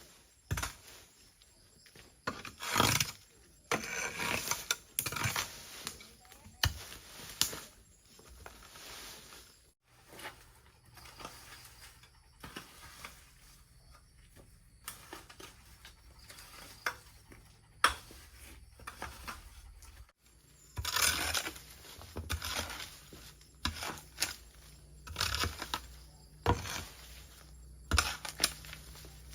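Irregular handling noises: scattered knocks, rustles and clatter, with the sound cutting off abruptly about ten seconds in and again near twenty seconds.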